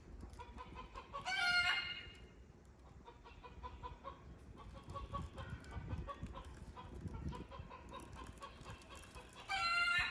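A chicken calling twice, a short loud call about a second in and another near the end, with a faint rapid ticking in between.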